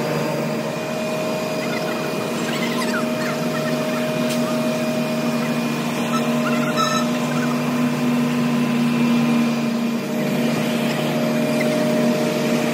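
An engine running steadily at a constant speed, a steady hum, with a few faint scrapes or clicks of work over it.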